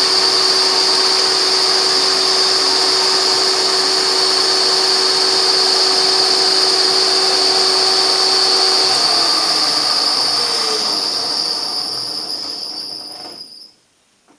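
Milling machine running with an end mill cutting into a broken titanium wheel bolt, a steady loud machine noise with a high-pitched whine. About nine seconds in it is switched off and the spindle winds down, fading out over several seconds.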